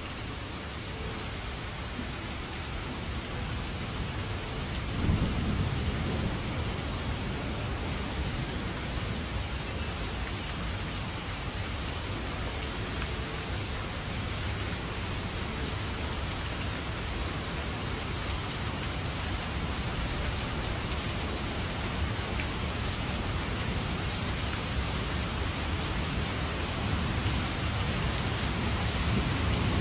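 Heavy rain falling steadily, with a low rumble of thunder about five seconds in and another building near the end.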